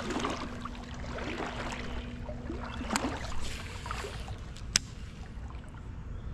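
Shallow creek water swishing and sloshing around the legs of someone wading. A faint steady hum runs for the first three seconds, and there is a single sharp click about five seconds in.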